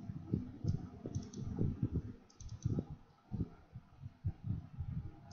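Irregular clicks and soft taps of a computer keyboard and mouse, several a second, some dull and low, a few sharp.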